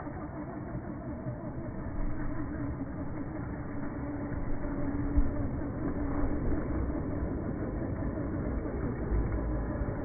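Electric RC truggy (VKAR Bison 1:10) driving through snow, its motor and drivetrain whining and changing pitch with the throttle. Under it is a low rumble that grows louder near the end.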